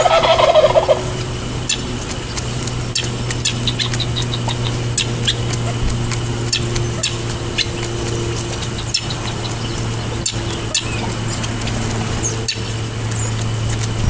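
A wild turkey gobbles once, a rapid rattling call about a second long at the start, then pecks at seed on asphalt, making irregular sharp clicks.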